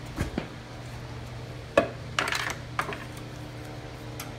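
Several short metal clinks and rattles as the push mower's brake cable and handle are handled, the loudest about two seconds in, over a steady low hum.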